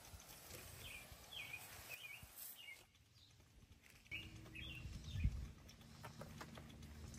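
Outdoor ambience with a bird chirping in short, repeated calls over a low rumble, with one thump about five seconds in; the background drops away for about a second near the middle.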